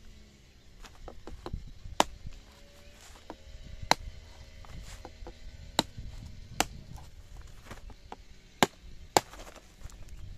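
A knife cutting through a small squash: a series of sharp cracks and knocks, about half a dozen loud ones with smaller ones between, as the blade works through the hard rind.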